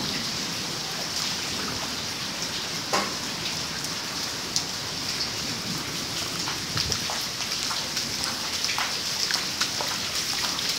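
Rain falling: a steady hiss with many scattered, sharper drop ticks.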